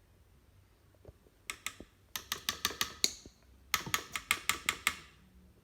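Rapid light taps, about six or seven a second, in two runs with a short pause between, each tap ringing briefly: a spoon knocked against the rim of a container to shake off honey.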